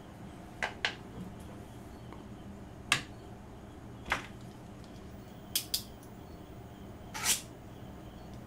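Several short, light clicks and taps, some in quick pairs, as paintbrushes and small tools are set down on a plastic palette and the desk, over a steady low room hum.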